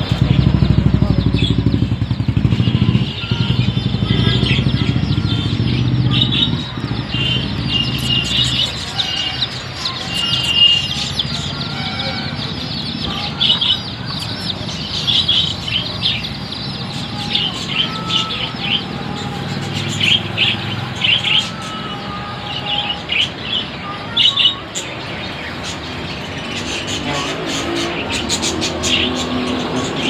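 Many small caged birds chirping in short, high calls. A low engine rumble runs under them and fades after about six seconds.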